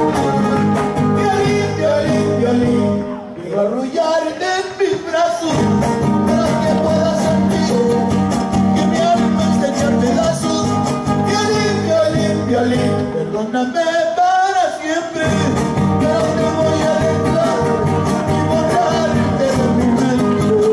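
Huapango played by a string band: violin over strummed guitars, with singing. Twice the low strumming drops out for a second or two while the higher wavering melody carries on.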